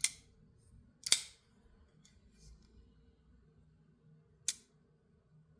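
Button-lock folding knife blade snapping sharply into place three times as it is flicked open and shut.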